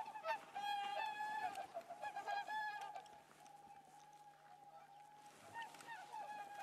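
A flock of waterfowl honking, many short calls overlapping, busiest in the first few seconds, thinning out, then picking up again near the end.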